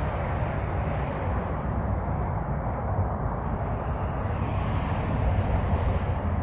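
A steady low rumble with insects trilling high in the background.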